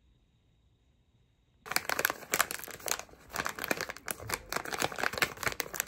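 Near silence, then from just under two seconds in a plastic snack wrapper crinkling and crackling densely as it is handled and pulled open by hand.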